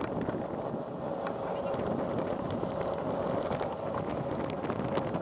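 Wind buffeting a bicycle-mounted camera's microphone while riding, over steady tyre rumble on paving and a faint steady hum, with small scattered ticks.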